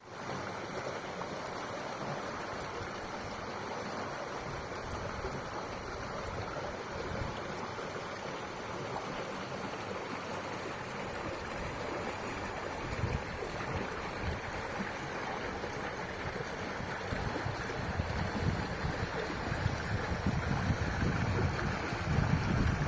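Waterfall water rushing in an even, steady noise, with low irregular buffeting on the microphone that grows through the second half.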